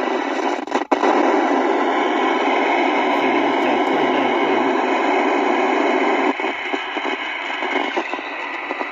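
Albrecht Alpha 4000 CB transceiver switched on, its speaker giving a steady hiss of open-squelch static. The hiss jumps up slightly after a click about a second in and turns down a little about six seconds in.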